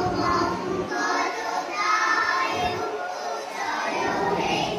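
Children's voices singing together.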